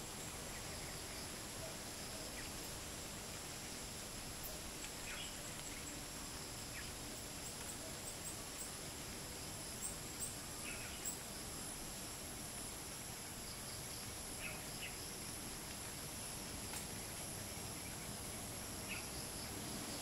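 Steady high-pitched trilling of crickets and cicadas, with a bird giving short chirps now and then over a soft hiss of light wind.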